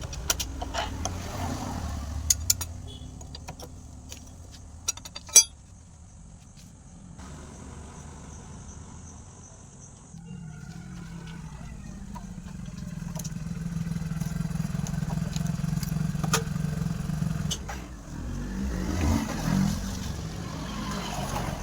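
Hero Splendor motorcycle running with its drive chain and sprockets turning, a steady low hum that grows louder and stops about seventeen seconds in. It is the chain-sprocket noise the bike is being checked for. A few sharp metallic clicks come in the first few seconds.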